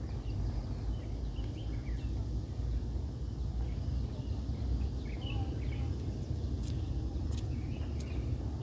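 Steady low outdoor rumble with a few short bird chirps scattered through it, and some faint sharp ticks near the end.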